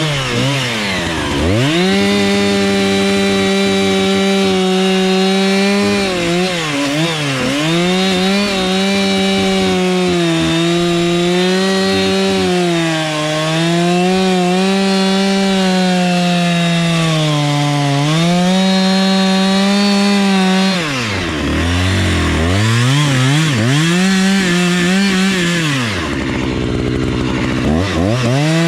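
Two-stroke chainsaw cutting through a large poplar trunk at full throttle, its pitch sagging and recovering as the chain loads in the wood. The throttle drops to idle briefly near the start, about two-thirds of the way through, and again near the end, each time revving back up.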